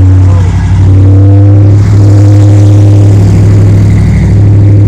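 A modified Chevrolet Camaro's engine running loud with a deep, steady rumble through an aftermarket exhaust, the sound of headers, a freer exhaust and possibly a cam swap.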